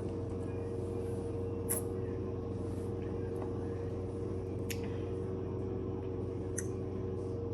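Steady machine hum at a constant pitch, with three faint short ticks.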